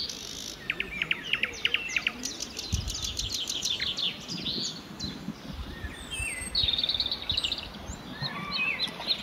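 Several wild birds calling and singing: quick series of high chirps, a few down-slurred whistles, and a fast trill about six and a half seconds in.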